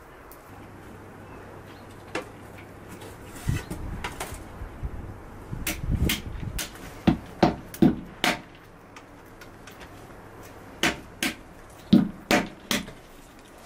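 A series of sharp knocks, in short groups of a few strikes each. The strikes near the end are walnuts being cracked open with a hand-held stone on a cloth-covered board.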